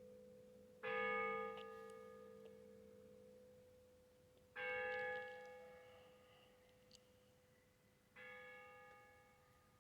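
A church bell tolling: three strikes about three and a half seconds apart, each with the same pitch and a long, slowly fading hum. The last strike is softer than the first two.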